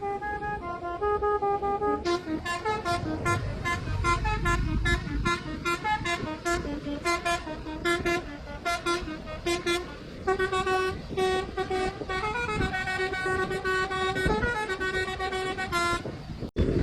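Telolet multi-tone musical horn playing a tune: from about two seconds in, a fast run of short toots several a second, then longer held notes in the second half.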